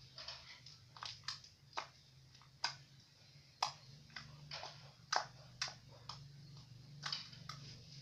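Glitter gold slime being squished and stretched by hand, giving irregular sharp clicks and pops, loudest in the middle of the stretch.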